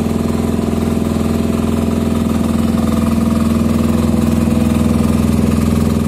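Portable generator engine running steadily and loudly at a constant speed, an even drone with a rapid firing beat.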